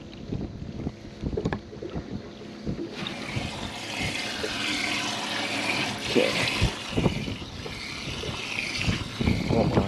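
A boat's livewell being opened: a few knocks in the first seconds, then water splashing and trickling steadily from about three seconds in, with wind on the microphone.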